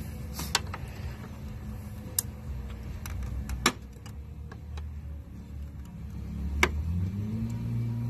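Sharp plastic clicks from the chrome front grille molding of a 2019 Toyota Land Cruiser 200 Series as its retaining clips are worked loose with a plastic pry tool. About five separate clicks, the loudest a little before the middle, over a steady low rumble that rises in pitch near the end.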